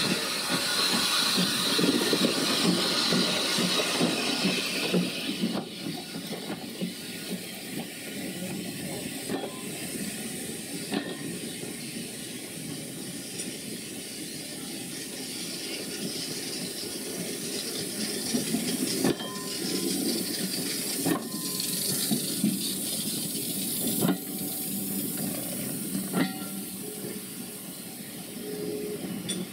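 A Bagnall saddle-tank steam locomotive passes close by, hissing steam for the first few seconds. Its coaches then roll past with a steady rumble, steam hissing from beneath them, and a few sharp clicks as the wheels cross rail joints.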